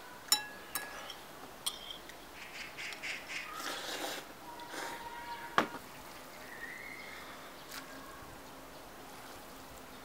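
Utensil and dish handling: a few sharp clinks of chopsticks against a ceramic bowl, with rustling handling noise in the middle as noodles are moved between a steel pot and the bowl.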